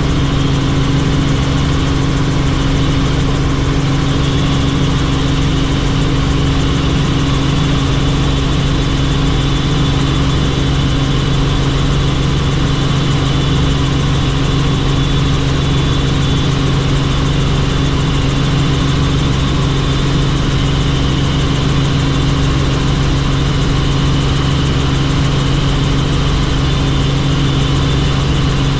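Helicopter in flight, its engine and rotor making a loud, steady drone with a low hum that does not change.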